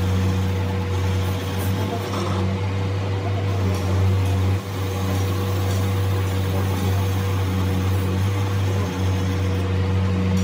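Metal lathe running with a steady low hum while its cutting tool turns a spinning metal workpiece, chips coming off the cut. The sound dips briefly twice.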